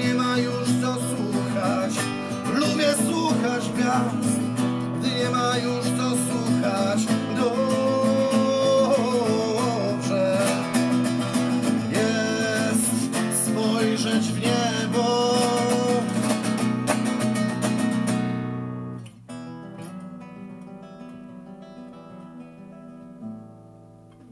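Acoustic guitar strummed as accompaniment to a man singing. About eighteen seconds in, the strumming stops and the guitar goes on with quieter, softly picked notes.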